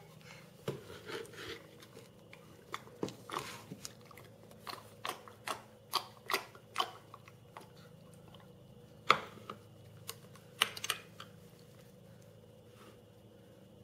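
A spoon knocking and scraping in a plastic bowl of Cheerios as a toddler eats: irregular clicks and small knocks, a few louder ones near the middle.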